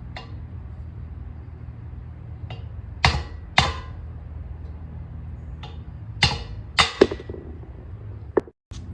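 Metal tools knocking against car suspension parts: a series of sharp clanks with a brief ring after the loudest, which come in pairs about half a second apart near the middle and again later, over a steady low hum.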